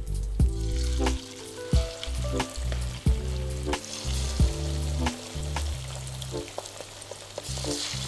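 Marinated, flour-dusted chicken pieces frying in hot oil in a pan, a steady hissing sizzle that grows louder near the end as the oil bubbles hard around the pieces. Background music with a steady beat plays over it.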